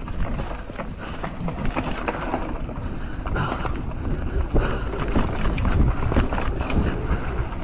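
Mountain bike riding down a dirt trail: wind rushing over the microphone and the tyres rumbling over the ground, with frequent short knocks and rattles as the bike goes over bumps.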